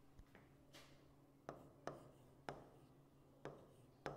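Stylus tapping on a touchscreen as a word is handwritten with a digital pen tool: about five faint sharp taps, half a second to a second apart.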